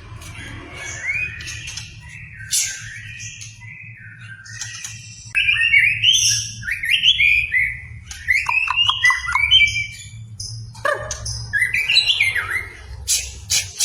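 White-rumped shama (murai batu) in full song: a fast, varied run of chirped and gliding whistled phrases, sparser at first and louder and denser from about a third of the way in.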